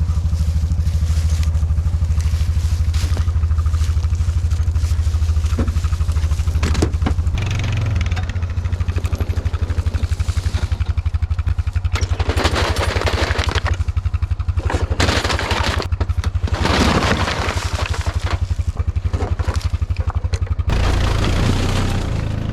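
Engine of a Toro Titan Max zero-turn riding mower running steadily at a low drone. Several loud bursts of rushing, scraping noise come in the second half.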